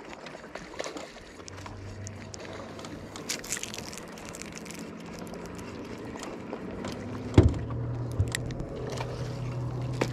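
A boat motor hums steadily, coming in about a second and a half in and getting louder after a sharp knock on the boat about seven seconds in, with scattered light clicks and knocks.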